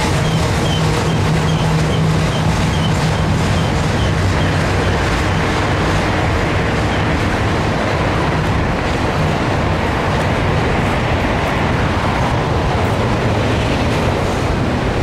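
Double-stack intermodal container train passing at trackside: a loud, steady rumble of steel wheels on rail from the loaded well cars.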